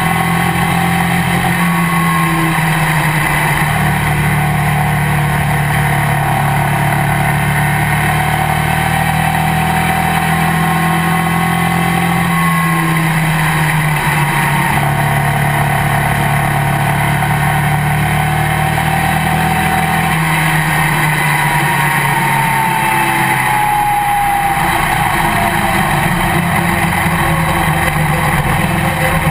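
Legends race car's motorcycle engine heard from inside the cockpit, running steadily at speed. Its pitch drops and climbs again a few times, with a falling whine in the second half.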